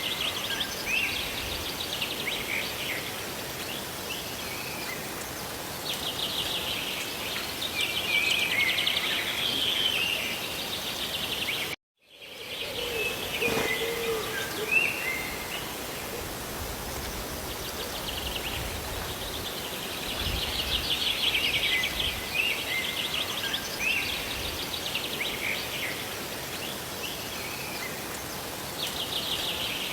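Steady hiss of rain with birds chirping and trilling again and again over it. The whole sound cuts out for a moment about twelve seconds in.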